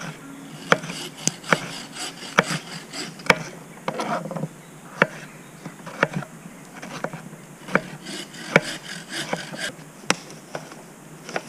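A knife chopping on a plastic chopping board, giving sharp, irregular knocks about once a second with soft scraping between cuts.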